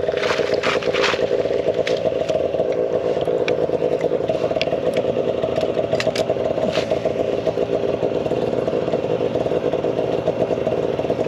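An engine running steadily at constant speed, with a fine rapid flutter and no change in pitch. Over it come a few sharp clicks and scrapes, mostly in the first second or so, as fishing line is handled at an ice hole.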